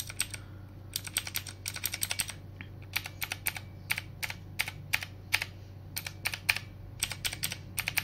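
Keys of a Digital Alliance Meca Air mechanical keyboard with blue clicky switches being pressed one after another, a fast irregular run of sharp clicks, to test the click with Alcha Pro Series keycaps fitted.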